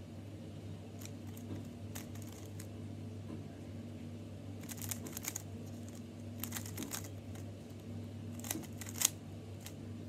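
GAN 356 Air M magnetic, stickerless speed cube being turned by hand, its plastic layers clicking into place in quick little clusters of clicks, five or so bursts of turning.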